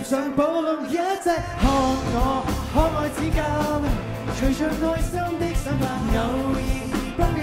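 Live pop-rock song from a band and singer on a concert stage, with a steady drum beat under a wavering sung melody. The drums and bass drop out for about a second near the start, then come back in.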